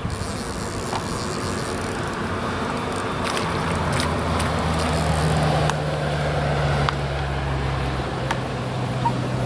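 An engine running with a steady low hum that comes in about three and a half seconds in and holds, over a constant outdoor background with a few faint clicks.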